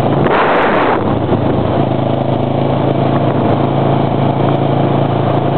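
Kawasaki Ninja 650R's parallel-twin engine running steadily at cruising speed, heard through a helmet-mounted camera with a constant rushing of wind and road noise that swells briefly about half a second in.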